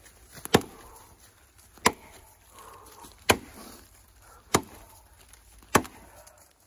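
Bushcraft axe chopping into a dead, dry log: five sharp strikes about one and a quarter seconds apart.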